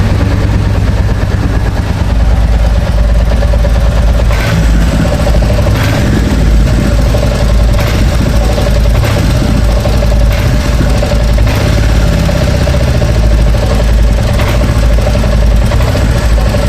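Royal Enfield Bullet 350's single-cylinder engine running, with sharp knocks or clatters every second or two and a steady whine from about five seconds in. The owner calls this clatter a 'khad' noise heard when the throttle is released, and takes it for an engine fault bad enough to have the engine replaced.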